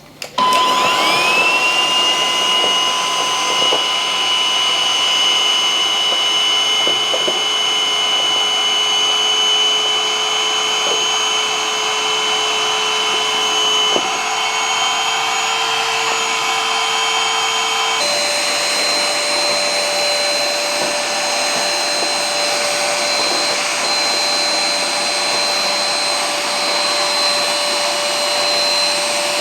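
Geek A8 cordless stick vacuum cleaner switched on: its motor whine rises to a steady high pitch within a couple of seconds and runs evenly. About two-thirds of the way through, the whine changes pitch abruptly.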